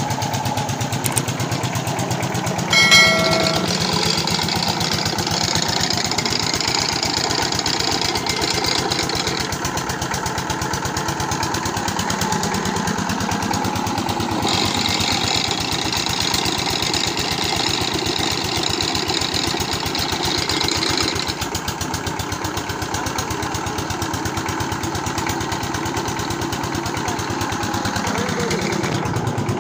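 Rebuilt 16 HP Peter diesel engine, fitted with new piston, rings and sleeve, running steadily with an even firing beat while belted to a water pump. A short ringing note sounds about three seconds in, and a hiss comes in twice over the running engine.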